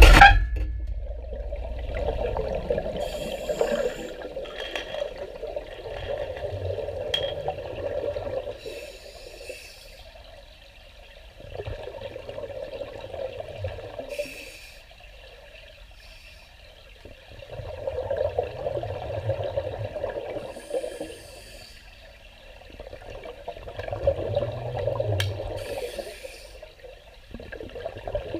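Scuba breathing heard underwater: long bubbling exhalations from a regulator lasting a few seconds each, with quieter gaps between them, repeating roughly every six seconds. A sharp knock sounds at the very start.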